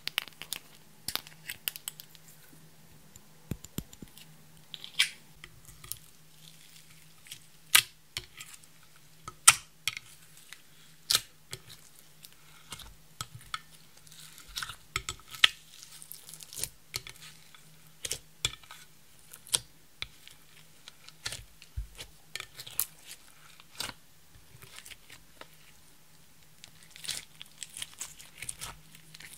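Clear slime being kneaded and stretched by hand, with crushed eyeshadow powder and glitter working into it: irregular sticky clicks and small pops, several a second at times.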